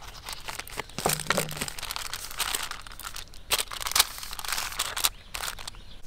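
Crinkling and crackling handling noise, with irregular sharp snaps and clicks.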